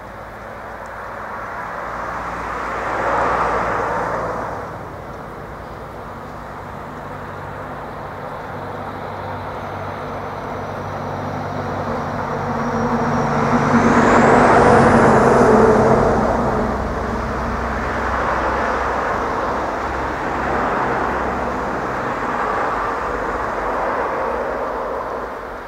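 Road vehicles passing: a short pass about three seconds in, then a heavier vehicle that builds up and is loudest around the middle, with a faint high whistle rising in pitch just before its peak. Engine noise carries on after it.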